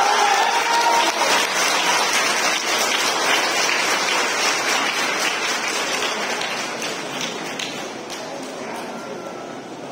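Audience applause dying away steadily after the lion dance music stops, with a faint ringing tone fading out in the first second or so.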